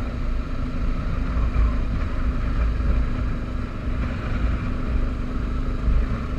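Honda CB500X motorcycle's parallel-twin engine running at a steady cruise, with wind rumbling over the microphone.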